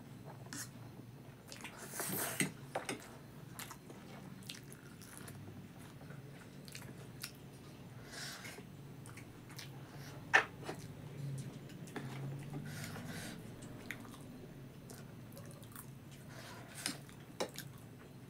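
Close-up eating sounds of chowmein noodles: slurping and chewing, with light clicks of a metal fork and spoon against the plate. There is one sharp clink about ten seconds in.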